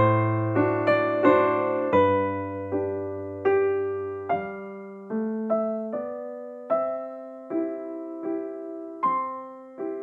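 Slow background piano music: single notes struck roughly every second, each dying away, over held bass notes that stop about halfway through.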